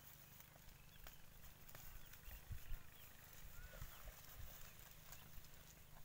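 Faint sounds of goats browsing in brush: scattered crisp clicks and rustles of leaves and twigs, with a few low thumps in the middle. Short high chirps sound faintly in the background.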